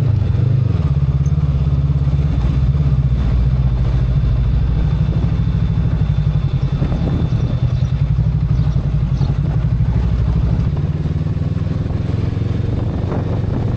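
Honda CB500X's parallel-twin engine running with a steady low throb.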